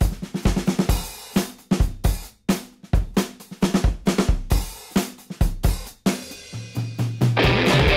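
Background music: a drum kit beat with kick, snare and cymbals, with a steady low tone coming in and the music building near the end.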